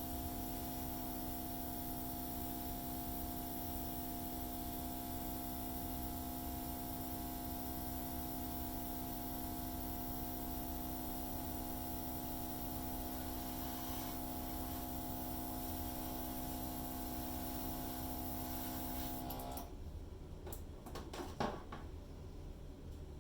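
Hairdryer running steadily, a hum over rushing air, blowing acrylic paint across a canvas; it switches off suddenly about three-quarters of the way through, followed by a few clicks.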